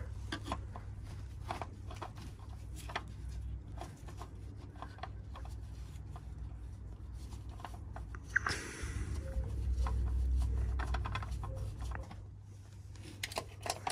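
A new oil filter being screwed on by a gloved hand: small clicks, taps and rubbing, over a steady low hum. A louder low rumble swells for a few seconds past the middle.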